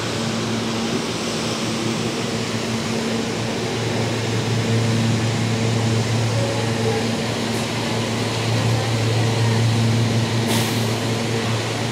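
R160 subway car standing at the platform with its doors open, its air conditioning and onboard equipment humming steadily: a low hum with higher steady tones above it, growing a little louder midway. A short hiss near the end.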